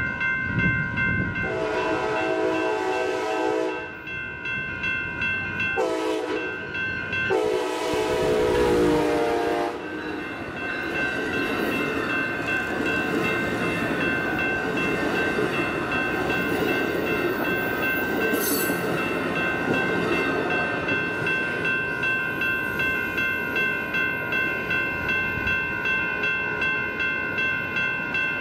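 A passenger train's multi-chime air horn sounds three blasts, long, short, long. The train then rolls past with a steady rumble and regular wheel clatter. A steady high whine runs underneath throughout.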